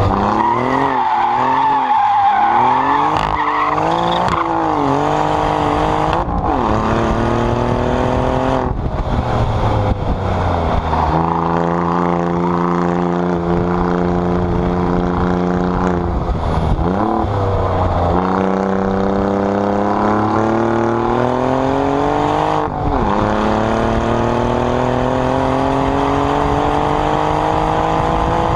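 Alfa Romeo Giulia Quadrifoglio's 2.9-litre twin-turbo V6, heard at its exhaust tips on track. The engine note climbs under acceleration and drops abruptly at gear changes, several times over, with a wavering on-off throttle note and tyres squealing through a bend at the start.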